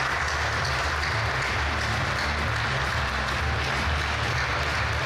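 Audience applauding steadily in a large hall, with low background music underneath.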